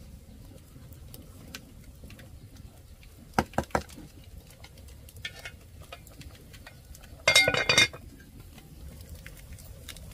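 Kitchenware clinking and knocking: three quick knocks about three and a half seconds in, then a louder, ringing clatter of dishes or utensils lasting about half a second, three quarters of the way through.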